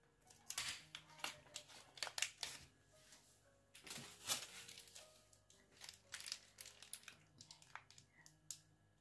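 Thin plastic pouch and piping bag crinkling as hands handle and open them, in many short irregular rustles, the loudest about four seconds in. Faint music underneath.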